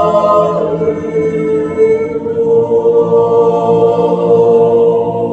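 Mixed Swiss yodel choir of men's and women's voices singing a cappella in harmony, settling about halfway through onto a long held chord.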